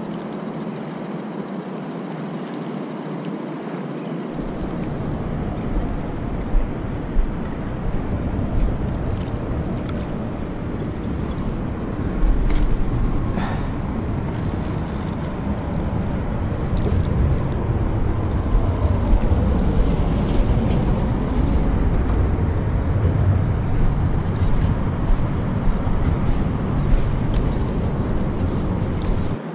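Wind buffeting the camera's microphone, a steady rumbling rush that grows stronger about a third of the way in, with a few short sharp knocks.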